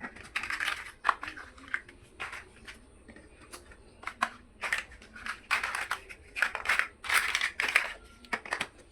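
Small plastic building blocks being handled and pressed together: irregular sharp clicks mixed with short rustling crunches, busiest in the second half.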